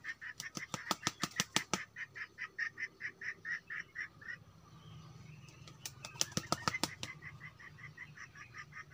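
Two quick runs of sharp wing beats, about a second in and again about six seconds in, typical of a rooster flapping its wings. Underneath is a high, even chirping pulse of about four beats a second that stops about four seconds in and resumes near the end.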